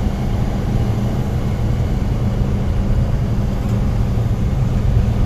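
Air-cooled flat-four engine of a Volkswagen T2 bus running steadily under way, a constant low drone mixed with road noise; its valves have just been adjusted.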